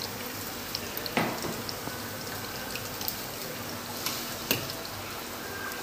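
Tom yum broth simmering in a metal wok, a steady bubbling hiss. A metal ladle knocks and scrapes against the wok a few times as it stirs, sharpest about a second in and again near the end.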